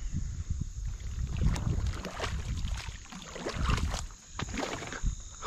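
Kayak paddle strokes pulling through a thick mat of floating weed, with watery splashes and several sharp knocks of the paddle against the kayak hull over a low rumble.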